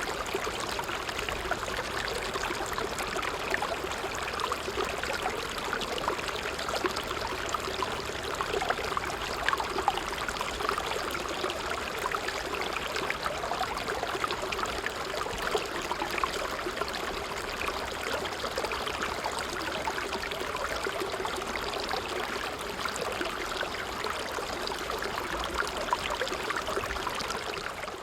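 A stream of water flowing steadily, with a fine babbling, trickling texture.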